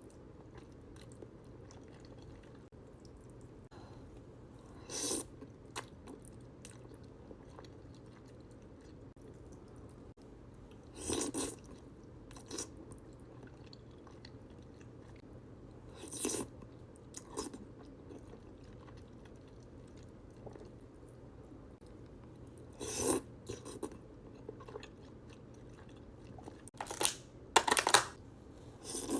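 Close-miked mukbang eating of Buldak spicy noodles: short bursts of chewing and crunching every few seconds, with a faint steady hum between them. The loudest bursts come near the end.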